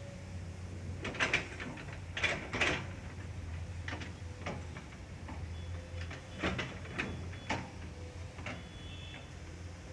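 Intermittent knocks and clanks from construction work, several sharp strokes in two clusters, over a steady low hum.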